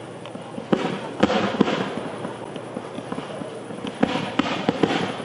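Fireworks display going off: many sharp bangs and cracks, coming thick about a second in and again about four seconds in, with lighter pops between.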